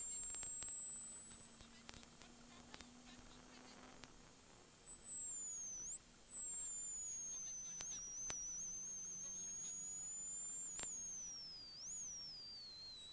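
Peugeot 106 XSI rally car heard from inside the cabin, its engine running hard with a high whine that rises and falls with the revs. The whine drops twice as the car slows, and a few sharp knocks cut through.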